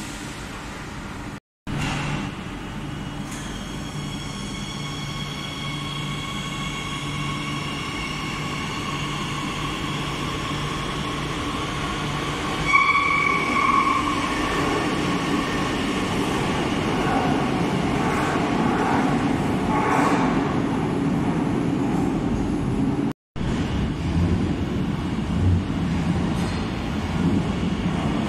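Madrid Metro 8000-series electric train pulling away from an underground platform: a steady electric whine from the traction equipment over a building rumble of steel wheels on rail, with a brief sharp squeal about halfway through. After a cut near the end, another train comes rumbling in.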